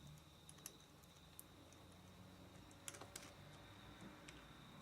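Near silence broken by a few faint, scattered clicks of a bobby pin probing the pin stack of a Master Excell padlock under light tension during single-pin picking.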